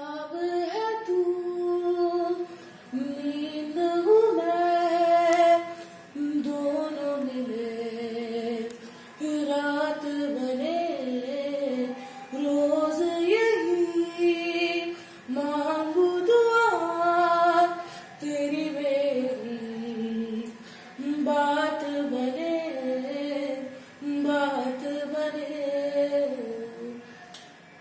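A woman's solo voice singing unaccompanied, in melodic phrases a few seconds long with short breaths between them.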